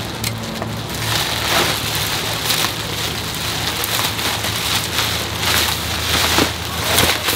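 Thin plastic bag and expanding-foam packing rustling and crinkling as they are handled and pulled apart, a dense crackle that thickens about a second in.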